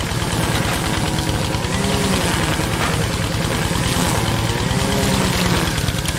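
A tractor-type engine idles with a fast, even low chugging, and a wavering tone sits over it.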